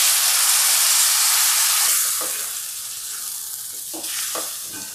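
Water poured into a hot stainless steel pan of oily potato masala, setting off a loud sizzle that dies down from about two seconds in as the water takes the heat. A wooden spatula stirs the potatoes, knocking against the pan a few times.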